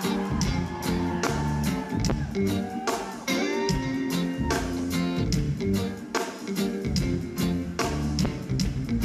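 Upbeat African popular music with guitar and a steady drum beat.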